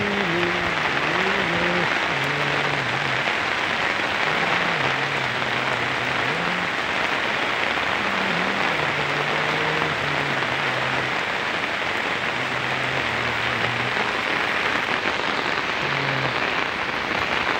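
Steady heavy rain falling, an even hiss. Underneath it a faint low tune of held notes moves slowly up and down in pitch.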